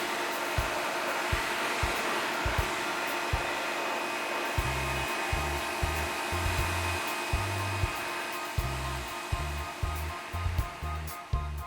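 Greenworks GPW2100 electric pressure washer running, its motor and pump giving a steady whining hiss as the jet sprays decking. The washer noise drops away near the end.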